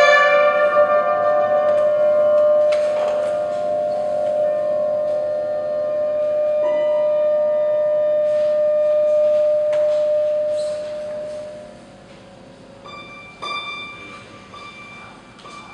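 Tenor saxophone holding one long note that fades out about twelve seconds in, over scattered plucked and struck sounds from inside a grand piano, played directly on its strings. Near the end, over a quieter background, a few short ringing bell-like piano tones.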